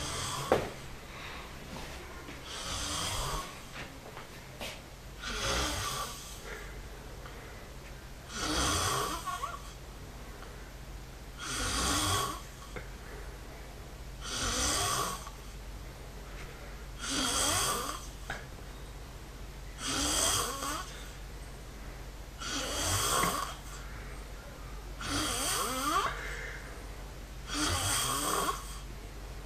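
A sleeping man snoring, one snore about every three seconds, ten in all, over a steady low hum. A sharp click sounds just after the start.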